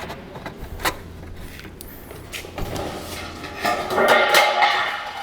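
Sheet-metal J-channel trim scraping and rattling as pieces are worked together: a couple of light clicks, then a rough metallic scraping that builds over about two seconds in the second half and tails off.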